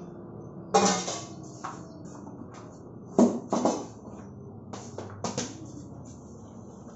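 Music with scattered drum hits over a faint low steady hum.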